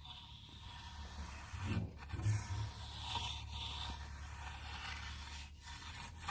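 Plastering trowel scraping and smoothing wet cement mortar along a floor edge, a continuous scraping with a few low bumps about two seconds in.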